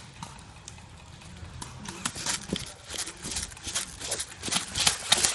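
Quick footsteps crunching through dry fallen leaves, about four to five steps a second, starting about a second and a half in and getting louder toward the end.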